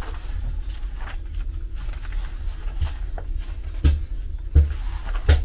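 Footsteps on a railway carriage floor over a steady low hum, with three heavier thumps in quick succession near the end.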